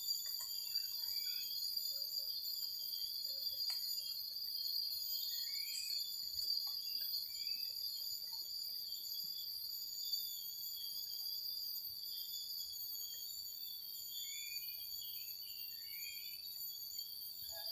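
A chorus of night insects, crickets or katydids, trilling steadily in several high-pitched layers, with short rising chirps scattered through it.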